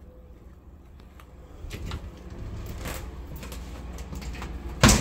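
Footsteps and rustling, then a sharp, loud knock near the end as a house door is shut.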